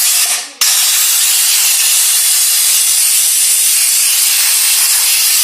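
Compressed-air blow gun blowing into a chainsaw to clear out debris: a loud, steady hiss that starts after a brief break about half a second in.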